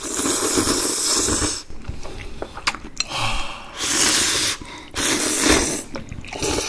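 Close-miked slurping of flat pasta noodles: three long slurps, with quieter chewing sounds in between.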